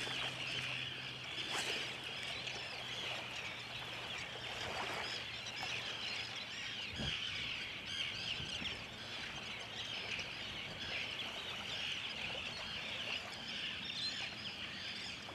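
A large flock of seabirds calling continuously over the water, many short high calls overlapping into a steady chatter: birds working bait over a sand eel blitz.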